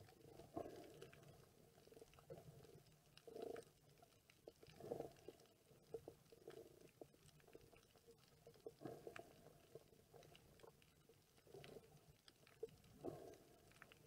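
Faint, muffled underwater sound picked up by a submerged camera: irregular low swishes and thumps of water moving around it every second or two, with scattered faint clicks.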